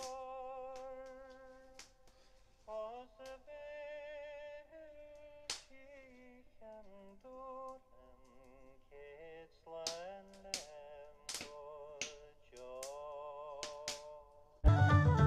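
Background music: a slow melody of held, wavering notes with sharp clicks scattered through it, then a louder full band with drums and bass comes in near the end.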